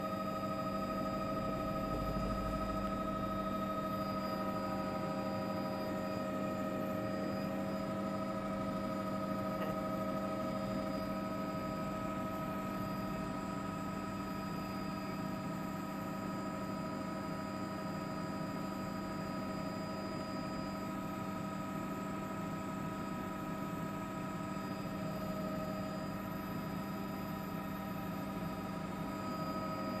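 Steady drone of a helicopter heard from inside its cabin, a constant mechanical hum with several unchanging whining tones over engine and rotor noise.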